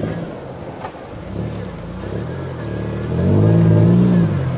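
Toyota Tacoma pickup's engine pulling the truck through a deep off-road rut. It runs low at first, then the revs climb about three seconds in, hold for about a second, and drop back.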